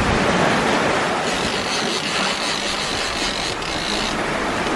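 Steady rush of wind and water past a catamaran under sail. A higher hiss joins in from about one to four seconds in.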